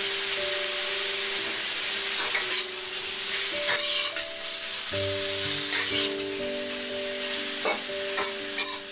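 Chicken, shrimp and carrot sizzling in an oiled wok while a spatula stirs and scrapes them, with a scrape or knock against the pan every second or so. Quiet background music plays underneath.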